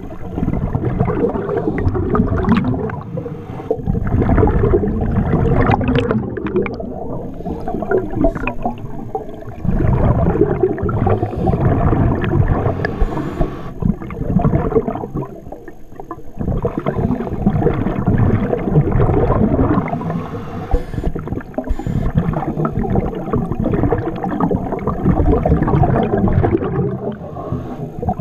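Scuba breathing heard underwater: a diver's exhaled air rushing out of the regulator in loud rumbling stretches, dipping between breaths roughly every five or six seconds.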